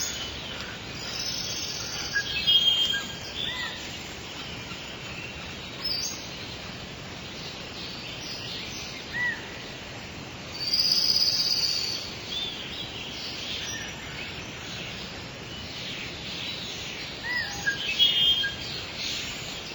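Rainforest ambience: various birds calling and chirping over a steady background hiss, with louder stretches of calls about two seconds in, around the middle and near the end.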